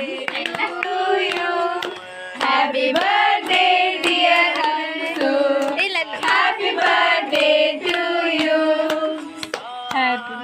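Background music: a song with a singing voice over sharp, regular percussion strokes.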